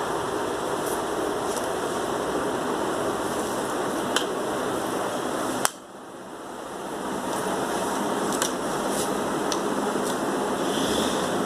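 Steady rushing background noise with a few faint clicks. A sharp click a little past halfway is followed by the noise dropping away and swelling back over a couple of seconds.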